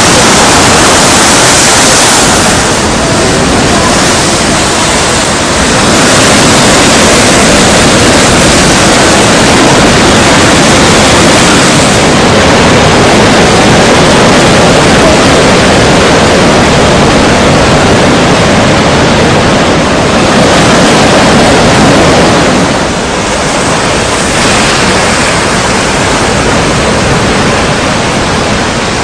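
Strong wind over the sea with surf, a loud steady rush of noise that eases a little about three-quarters of the way through.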